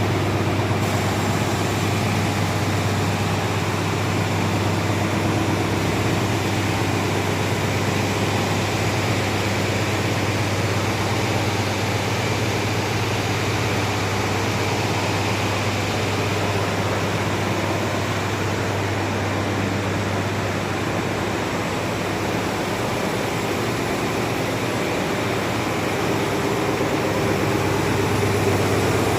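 Industrial sanding machine for WPC/PVC door panels running steadily: an even rushing noise over a constant low hum.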